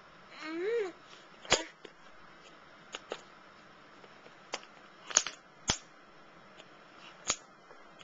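A baby's short rising-and-falling vocal sound, then a series of sharp, irregular knocks and taps as a baby bangs a plastic water bottle about, the loudest a little past halfway.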